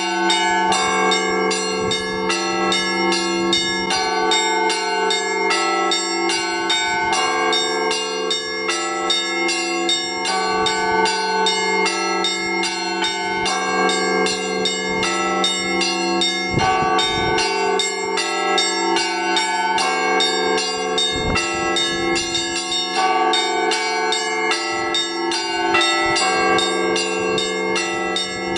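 Russian Orthodox church bells rung by hand in the Rostov style: quick, dense patterns on the small bells over the middle bells, all ringing on into one another above a steady low hum, with a few deeper strokes now and then.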